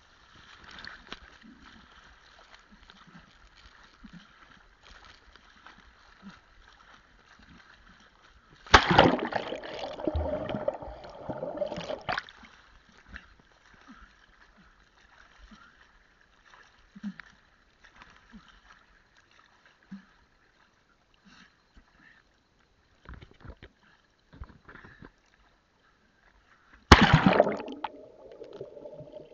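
Sea water splashing and sloshing around a swimmer's action camera at the surface, with two loud bouts of splashing, one about nine seconds in lasting a few seconds and one near the end as the camera goes under, after which the sound turns muffled and underwater.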